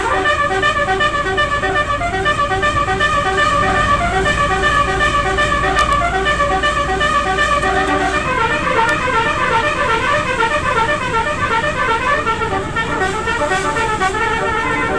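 Odong-odong's multi-trumpet telolet horn playing a tune, its trumpets sounding one after another in quick, stepping notes over a running engine's rumble. About eight seconds in, the notes change to a faster run that climbs and falls.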